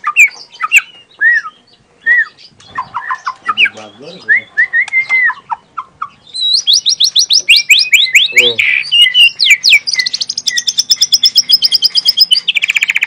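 Young white-rumped shama singing: scattered short whistled notes and slurs, then, about six seconds in, a long loud run of rapid repeated high notes and fast trills.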